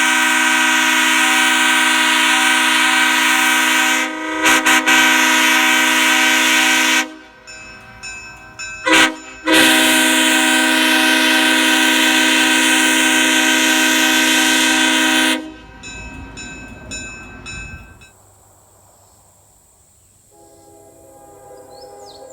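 Nathan Airchime K5HL five-chime locomotive air horn, a first-generation horn with a sandcast two-piece 1L bell, sounding its chord in a long blast that breaks briefly a few times about four seconds in and cuts off near seven seconds. After a couple of quick toots, a second long blast runs from about nine and a half to fifteen seconds, then the air dies away in a hiss.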